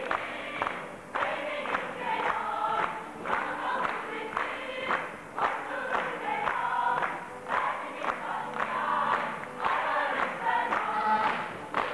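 Cast of young men and women singing a song together in chorus.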